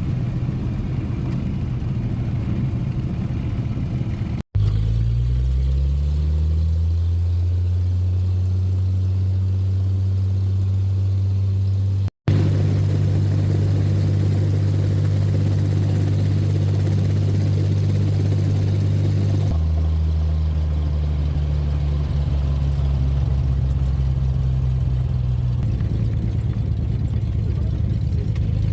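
Light aircraft's engine and propeller running with a steady drone, broken by two brief dropouts about 4.5 and 12 seconds in, with the pitch of the drone shifting about two-thirds of the way through.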